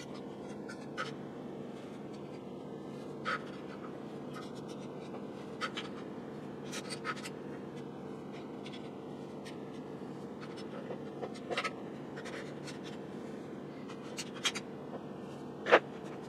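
Paper towels rubbing and rustling as old grease is wiped out of a wringer-washer transmission housing, with scattered light clicks and scrapes from handling the parts. A steady low hum of room noise runs underneath.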